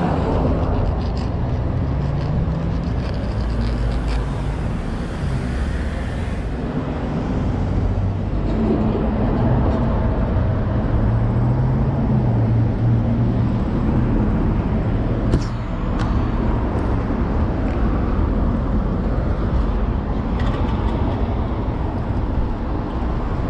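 Street traffic: cars passing on a city street, a steady rumble with a wandering engine hum. A single short click sounds about fifteen seconds in.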